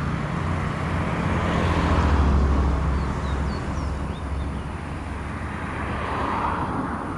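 Road traffic rumble from passing motor vehicles, swelling to its loudest about two seconds in and easing off again.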